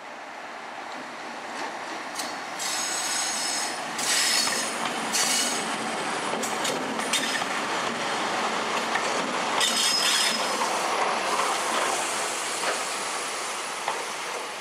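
A DB Schenker Class 60 diesel locomotive and its passenger coaches passing, the sound building as the train approaches, then steel wheels rolling and clicking over the rail joints as the coaches go by. A high-pitched wheel squeal comes and goes, strongest a few seconds in and again around ten seconds.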